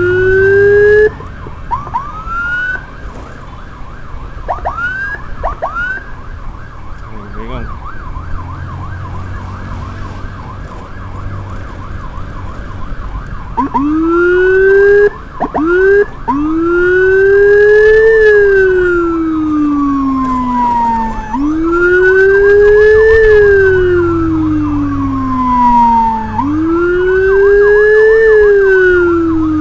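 Whelen electronic siren on an ambulance escort motorcycle. It opens with a fast yelp and a few short upward whoops, and runs quieter for several seconds. From about halfway it switches to a loud slow wail, rising and falling about every five seconds.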